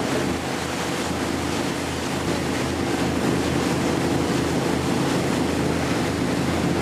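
Fishing boat's motor running steadily underway, a low even drone, with the rush of wind and water over it.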